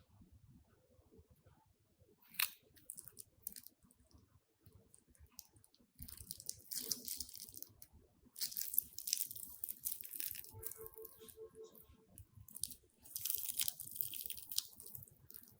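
Crunchy slime being worked by hand, giving crisp crackling in bursts: a short one about two seconds in, then longer runs from about six to eleven seconds and again near the end.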